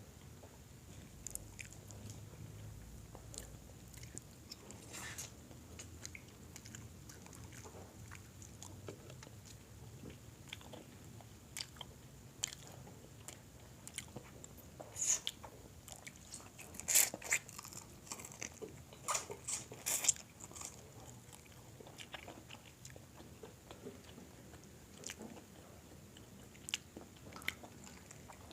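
A person biting and chewing crispy fried chicken close to the microphone: quiet chewing with scattered sharp crunches, the loudest run of crunches coming in the middle.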